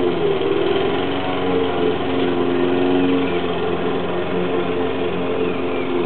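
A petrol lawn mower engine running steadily, its pitch wavering briefly about half a second in.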